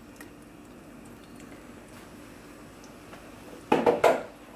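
Thick purée of roasted red peppers and plum tomatoes being emptied from a blender jar into a stainless steel soup pot: a faint wet slide, then a quick run of two or three hard knocks against the pot near the end.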